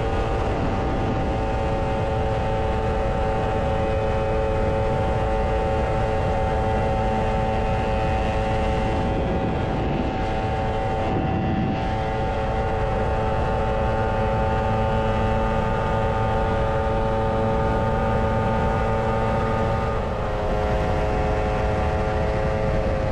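Lambretta scooter engine running steadily at cruising speed, under heavy wind and road noise. The engine note drops slightly near the end.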